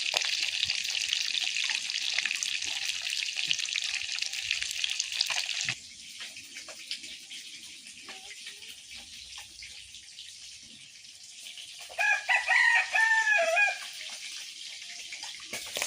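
Fish curry sizzling and hissing in the pan for about five and a half seconds, cutting off suddenly, then quiet with a few small clicks. A rooster crows once about twelve seconds in, the loudest sound.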